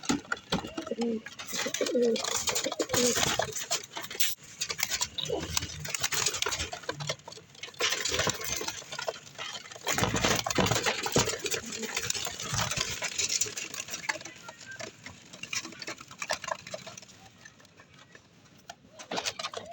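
Domestic pigeons cooing in short low calls during the first few seconds, among scratchy clicks and rustling that go on throughout and fade near the end.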